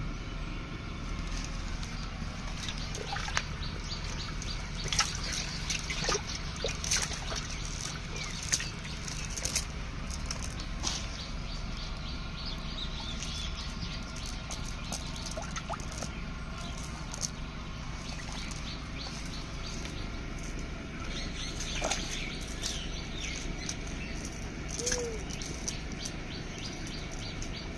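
Scattered rustles, slaps and crackles as a wet cast net with live fish in it is handled over muddy ground and dry leaves. Birds chirp faintly in the background.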